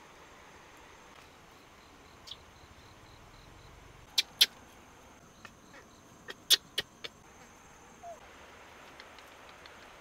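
Crickets trilling steadily as a high, thin background, with a handful of sharp clicks in the middle: two about four seconds in and four more in quick succession around six to seven seconds.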